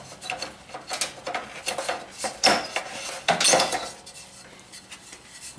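Fluorescent tube being twisted out of its sockets and lifted from a sheet-metal shop-light fixture: irregular clicks, rattles and scraping of the tube and its pins against the metal. The loudest come about two and a half and three and a half seconds in, and they are fainter after that.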